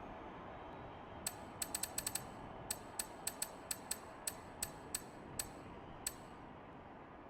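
An irregular run of small, sharp mechanical clicks, about fifteen of them over roughly five seconds, then only a faint hiss.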